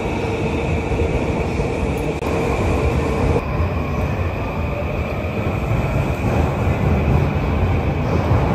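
Yamanote Line electric train moving along the platform, a steady rumble of wheels and running gear with a steady tone that cuts off about three and a half seconds in.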